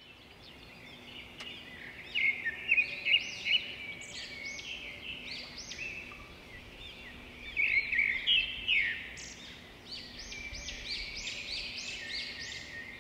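Small birds singing: a steady run of quick, high, arching chirps, loudest in clusters a couple of seconds in and again around the middle and near the end.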